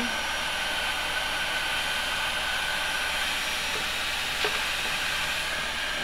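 MONOMONO 1800-watt ionic hair dryer running steadily on its hot setting: a continuous rush of blown air with a faint high motor whine.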